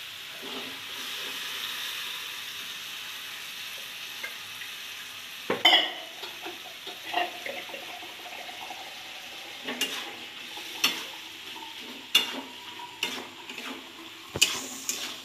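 Boiled chickpeas sizzling in hot spiced oil in a metal karai, with a steady frying hiss for the first few seconds. A metal spatula then stirs them, with a loud clank about halfway through and several sharp knocks and scrapes against the pan near the end.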